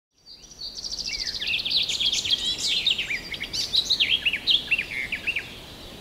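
Songbirds singing, a busy mix of quick high chirps, short trills and down-slurred notes that overlap at different pitches, dying away near the end.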